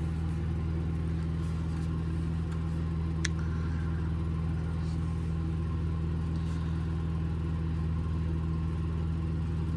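Steady low mechanical hum of machinery running in the background. A single sharp click about three seconds in, with a few fainter ticks, as the plastic parts of a cordless trim router are worked by hand.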